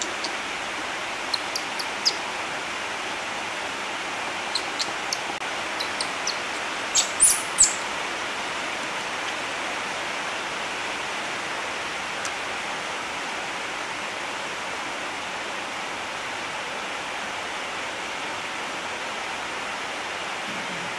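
Newborn baby monkey giving short, high-pitched squeaky whimpers over a steady hiss: a scattering of faint squeaks in the first few seconds, then three louder ones close together about seven seconds in, while it is hungry for milk.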